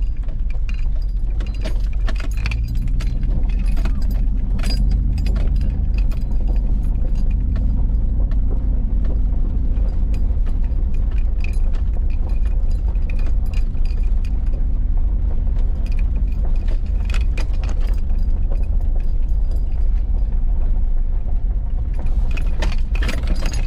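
Cabin noise of a 2006 Nissan Armada driving on a rough gravel forest track. A steady low rumble of engine and tyres runs under frequent light rattles and clicks as the truck jolts over the bumps.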